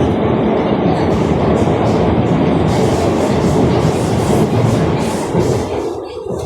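Alstom Movia R151 metro train running at speed between stations, heard from inside the carriage: a loud, steady rumble of wheels on rail. From about a second in, a high hiss pulses roughly three times a second, fading near the end.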